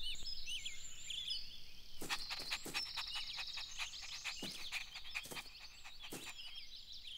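Faint cartoon nature ambience of small birds chirping and trilling, with a scattering of soft clicks and taps from about two seconds in.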